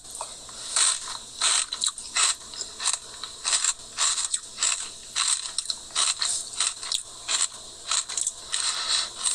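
Someone eating a Dairy Queen Blizzard: short crunches and spoon scrapes, about two a second, as the crispy Chex-like pieces are spooned up and chewed.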